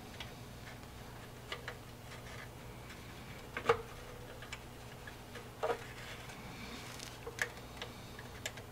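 Small plastic clicks and taps as fingers press and seat a tiny plastic model-kit part against a plastic hull: irregular, with two louder clicks near the middle.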